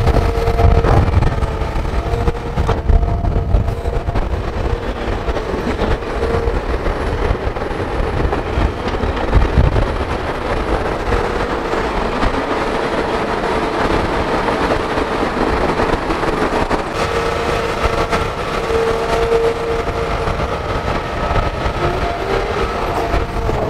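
Hitachi Zaxis crawler excavator working in wet soil: its diesel engine runs steadily under load with a constant whine from the machine, and a few low knocks.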